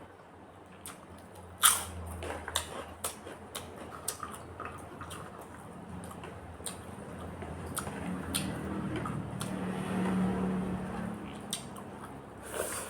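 Close-miked eating sounds: chewing and wet mouth smacks, with scattered small clicks and a sharper click about two seconds in and again near the end.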